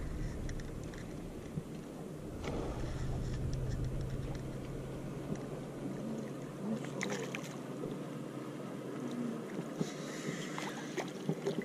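Steady low hum of a boat motor running, with scattered light clicks and knocks.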